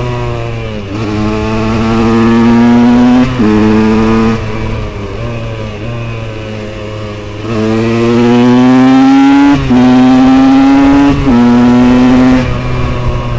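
KTM 125 EXC's single-cylinder two-stroke engine with an FMF Powercore 2 silencer, ridden hard. It accelerates twice, the note rising and stepping at each gear change, with off-throttle stretches between the pulls.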